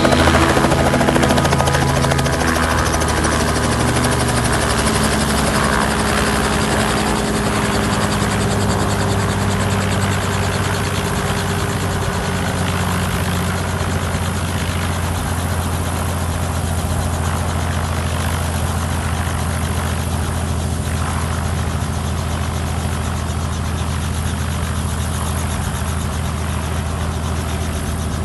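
Helicopter engine and rotor running steadily: a continuous low drone with a hiss of rushing air, easing down in loudness over the first several seconds and then holding steady.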